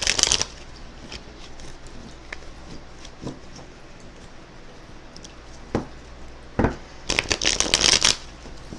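Tarot cards being shuffled and handled: a quick riffle of cards right at the start, a few soft taps in between, and a longer riffle of about a second near the end.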